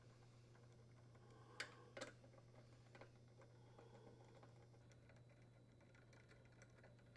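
Near silence with faint scattered clicks and ticks, the two sharpest coming close together about a second and a half in: small metal sounds of the dryer door's hinge screws being unthreaded and handled.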